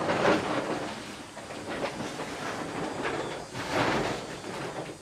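Rustling and rubbing as a hand strokes a sleeping tabby cat's fur and brushes against the woven plastic sacks around it, swelling and easing in a few surges.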